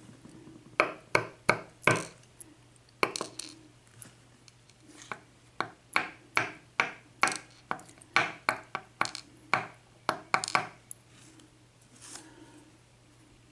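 Irregular run of sharp, light metallic clicks and taps from a pin tumbler lock being taken apart and its bottom pins checked, with short pauses between clusters.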